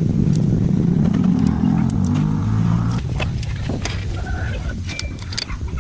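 An engine running with a low hum, loudest for about the first three seconds and then dropping lower, with scattered sharp clicks and taps over it.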